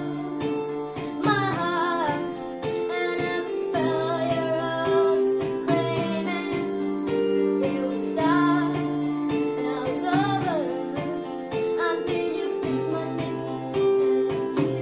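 A high voice singing a pop ballad melody with long held, gliding notes over a steady instrumental backing.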